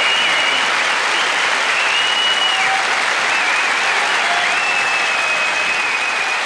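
A large theatre audience applauding loudly and steadily, with a few long, high whistles of approval over the clapping.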